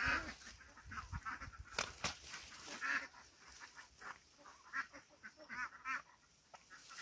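Ducks quacking in short calls, a few at a time, with a couple of sharp knocks from digging in wet mud about two seconds in.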